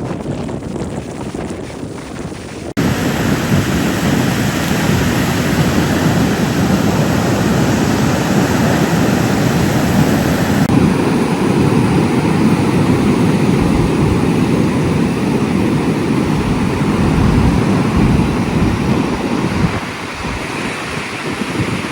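Ocean surf breaking on a beach, with wind buffeting the microphone. The noise jumps louder about three seconds in and shifts abruptly twice more, as the recording cuts between takes.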